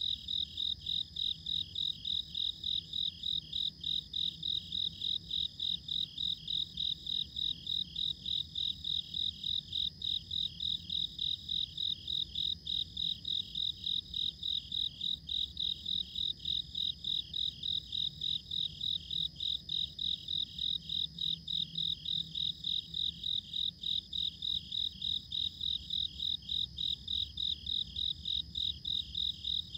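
An insect, most like a cricket, chirping in an even rhythm of about three chirps a second.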